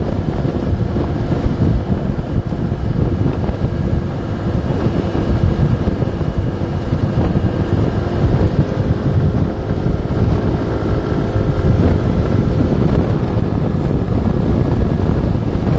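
Heavy wind buffeting the microphone on a moving motorbike, with the bike's engine humming steadily underneath.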